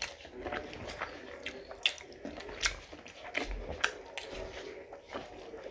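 Close-up eating sounds of two people chewing rice and curry: wet chewing, squelches and lip smacks, with a few sharper smacks standing out about two, three and four seconds in.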